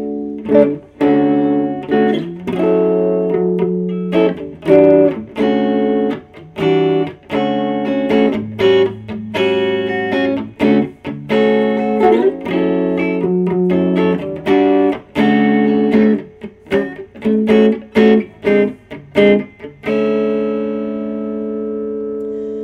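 Epiphone Wilshire P90 Reissue electric guitar played clean on its neck P90 pickup through a tube amp: a run of picked single notes and chords, with a final chord left ringing out from about twenty seconds in.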